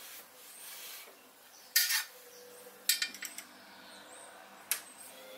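Sharp metal clinks and clatters of a hex key and steel parts against the mini lathe's steel carriage as the lock strip's cap head screws are tightened from underneath. The loudest clink comes about two seconds in, a short cluster follows a second later, and one more comes near the end.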